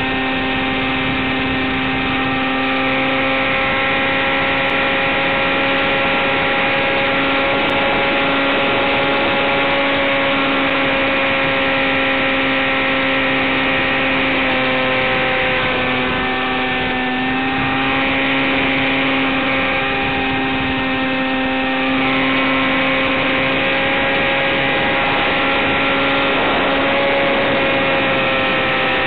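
Electric motor and propeller of a model plane in flight, a steady hum over hiss, its pitch dipping and rising slightly a few times.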